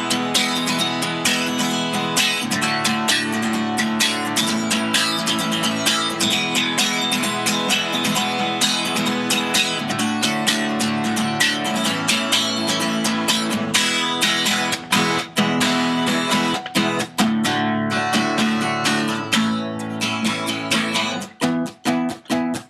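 Acoustic guitar strummed steadily through an instrumental break. Near the end the strumming turns into short, choppy strokes with brief gaps between them.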